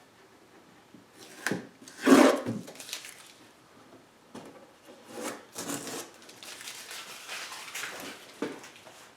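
Wooden box being handled: a loud wooden knock about two seconds in, then scattered knocks and rubbing noises as the box and its newly hinged lid are worked.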